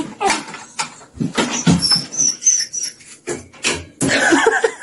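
Small dog barking repeatedly in short, sharp bursts.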